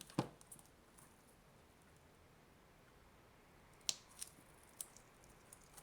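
A few short, sharp clicks and taps from handling small objects by hand. One comes just after the start, and three more follow close together about four seconds in.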